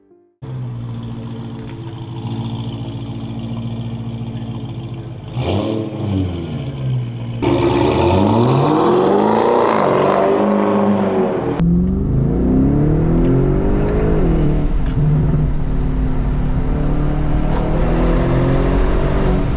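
Audi 4.0T twin-turbo V8 fitted with a blow-off valve, revving and accelerating hard, its pitch rising and falling through the gears across a few abruptly cut clips. It settles into a steady drone heard from inside the cabin near the end.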